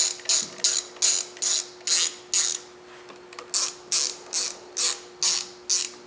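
Hand ratchet wrench clicking as the handlebar switch-housing bolts are snugged down, in quick back-and-forth strokes of about two or three a second. There are two runs, with a pause of about a second midway.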